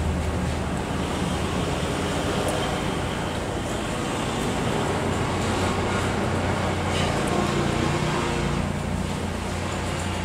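Steady background rumble and hiss with a constant low hum, with no distinct events standing out.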